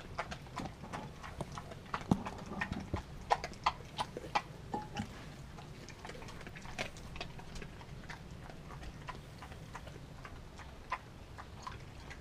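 A Kelpie–German Shepherd–wolf mix dog chewing raw chicken, her teeth giving irregular sharp clicks and crunches. The clicks come thick and fast for the first five seconds or so, then thin out to scattered ones.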